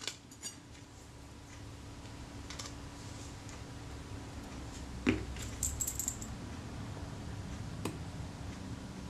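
Small metallic clicks and light taps of a fine screwdriver and tiny chrome screws against the top cover of a Kodak Retina IIa camera as the top-cover screws are fitted: a sharp click about five seconds in, a quick run of light ticks just after it, and another click near the end.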